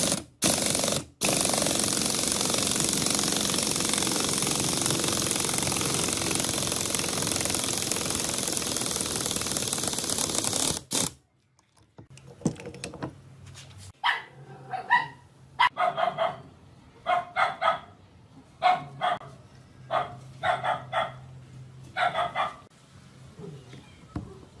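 A power impact wrench runs steadily for about eleven seconds, spinning a three-jaw gear puller's screw to draw a V-belt pulley off an electric motor's shaft, then stops abruptly. Later a dog barks repeatedly in short bursts.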